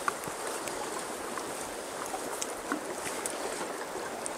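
Fast river water rushing steadily over a shallow riffle, with a few faint scattered ticks.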